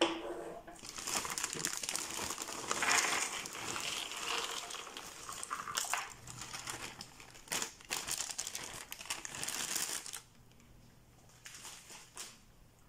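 Thin plastic bag of jigsaw puzzle pieces crinkling as it is pulled open and emptied, with small clicks of the cardboard pieces spilling into the box. The crinkling stops about ten seconds in.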